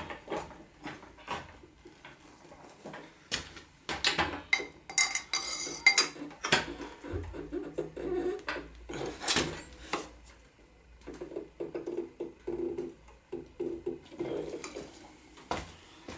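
Steel hand tools clinking and clanking: a breaker bar and socket being fitted to and worked against a very tight motorcycle rear axle nut. Irregular knocks throughout, with a ringing metallic clatter about five seconds in and a sharp knock near the middle.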